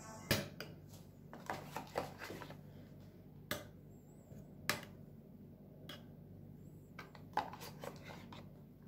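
Metal fork clinking and scraping against a metal baking tray and a béchamel carton while sauce is spread over pasta: a handful of separate sharp clicks over a faint steady hum.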